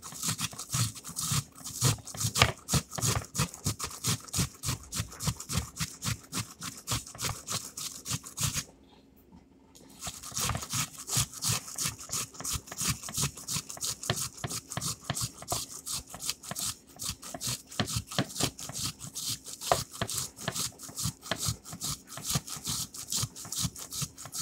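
Onion being grated on a stainless-steel box grater: quick, rhythmic rasping strokes, with a short pause about nine seconds in before the strokes resume.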